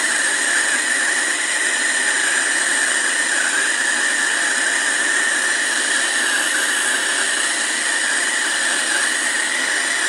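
Handheld gas torch burning with a steady hiss, its flame heating the copper stub pipes on a refrigerator compressor to loosen their brazed joints.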